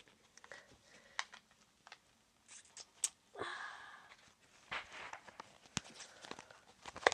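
Items and packaging being handled by hand: scattered sharp clicks and taps with a few short bursts of rustling.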